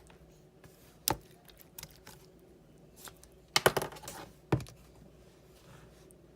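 A few scattered sharp clicks and taps, with a quick cluster of them in the middle.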